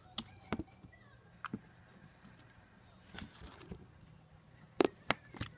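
Slime being squeezed and pressed by hand, giving irregular sharp pops and clicks, the loudest two near the end.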